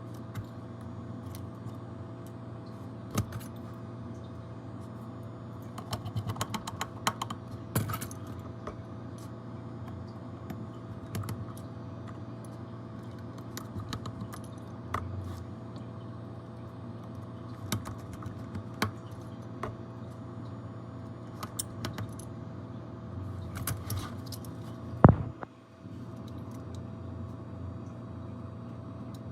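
Scattered small clicks and taps, as of tools and small parts being handled on a repair bench, over a steady low electrical hum, with a quick run of clicks about 6 seconds in and one louder knock near the end.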